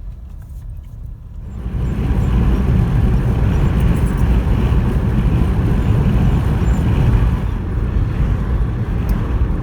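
Steady road and wind noise of a Toyota car being driven, heavy in the low end, swelling up about a second and a half in.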